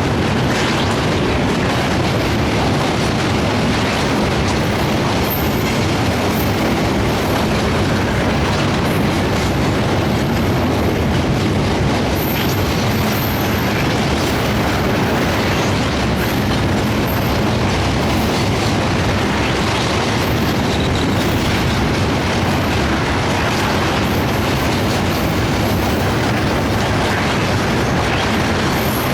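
Sundarban Express passenger train running over a rail bridge: a loud, steady rumble and clatter of coach wheels on the rails.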